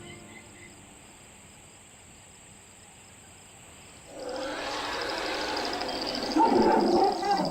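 Crickets chirping steadily, then about four seconds in a large wild animal starts a loud, rough call that grows louder near the end.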